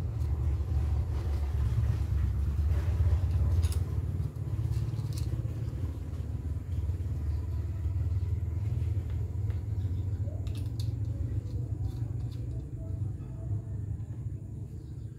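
Steady low rumble throughout, with a few faint small clicks of a small tool working on a night-vision scope.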